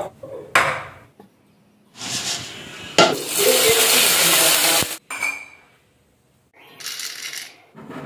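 Kitchen clatter in short cuts: a knock of kitchenware, then spices, a dried red chilli and curry leaves sizzling in hot oil in a pot, the loudest part, from about three to five seconds in.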